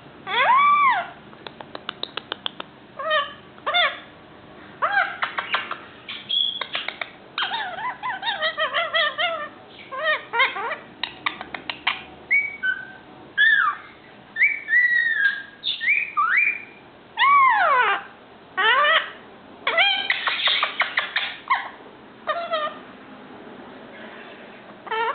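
Young male Indian ringneck parakeet vocalising: a string of rising and falling whistles, squawks and chattery calls. There is a rapid run of clicks about two seconds in.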